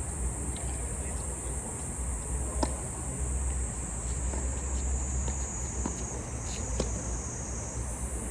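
A steady, high-pitched drone of insects. A few sharp knocks of tennis balls being struck cut through it, the clearest about two and a half seconds in and again near the end.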